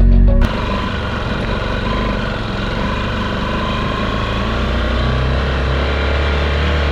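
Music cuts off about half a second in, giving way to a vehicle on the move: a steady low engine hum under continuous road noise.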